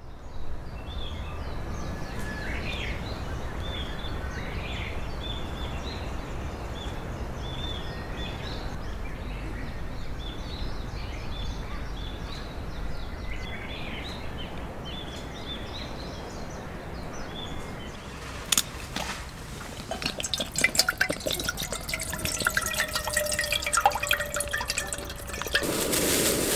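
Outdoor campsite ambience: a steady low rumble with scattered short, high plinks, some rising in pitch, like water dripping. About two-thirds of the way through it gives way to a run of sharp clicks and clattering with a held ringing tone.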